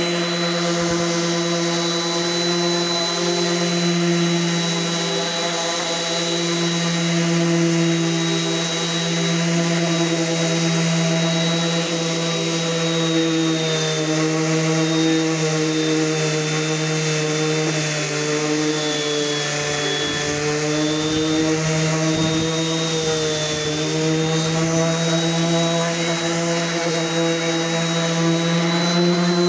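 DeWalt 5-inch random orbit sander with a 120-grit disc running steadily against oak, sanding the clear coat off a cabinet door: an even motor hum under a gritty rubbing hiss. The pitch dips slightly about halfway through, then recovers.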